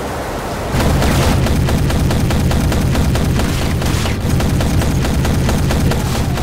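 Sustained automatic gunfire: a rapid, even stream of shots that starts about a second in and runs on, with a heavy low rumble under it.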